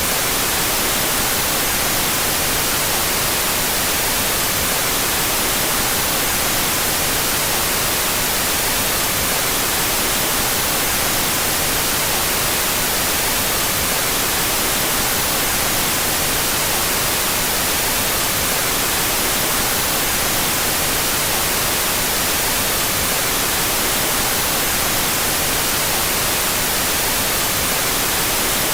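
Steady synthetic white noise, an even hiss that does not change, with its two stereo channels played out of phase.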